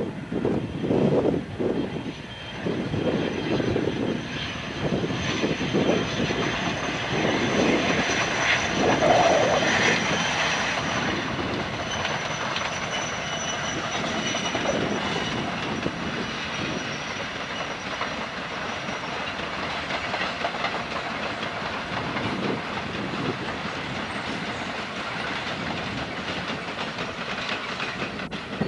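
A diesel-hauled train of coal hopper wagons rolling past. Loud, uneven thumps come about once a second over the first ten seconds, then it settles into a steady rumble with the clickety-clack of wagon wheels over rail joints.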